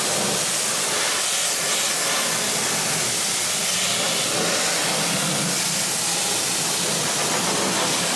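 Pressure washer spraying a jet of water into a pickup truck's wheel well and frame, rinsing out degreaser: a steady hiss of spray with a low hum underneath.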